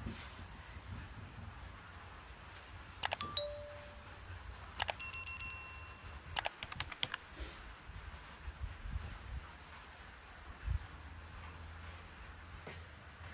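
Steady high-pitched chirring of insects, cutting off about two seconds before the end. Over it come a few sharp clinks about three seconds in and a louder cluster about five seconds in that rings briefly at a bell-like pitch.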